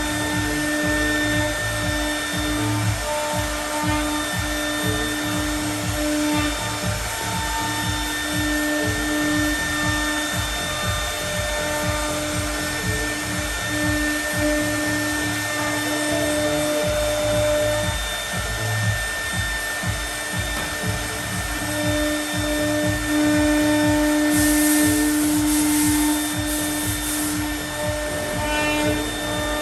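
CNC router spindle running and milling aluminium composite panel: a steady machine whine with tones that drop out and return as the cutter works, over a continuous low rumble. A hiss joins in for a few seconds near the end.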